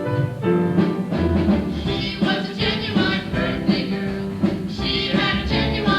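Upbeat song accompaniment with a bass line and a steady drum beat, with some singing.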